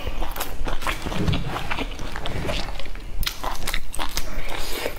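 Close-miked chewing of a mouthful of raw red onion: an irregular run of crisp crunches.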